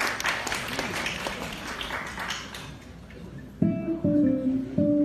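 Audience applause dying away, then a hollow-body electric jazz guitar starts playing clear single notes and short chords about three and a half seconds in.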